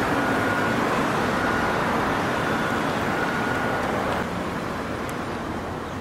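City street traffic noise: a steady rumble of passing and idling vehicles, easing a little about four seconds in.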